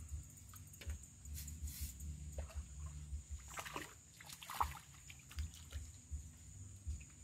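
A hooked fish, a pacu, splashing and thrashing at the water's surface as it is hauled in on a cane pole, in irregular bursts of splashing about a second and a half in and again around four seconds in.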